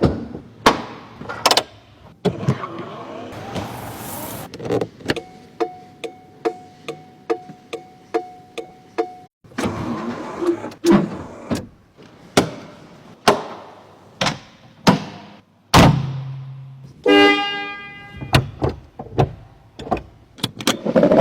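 Edited soundtrack of sharp percussive hits with quick decays, with a run of about ten evenly spaced beeps in the first half and a short buzzing tone with many overtones near the end.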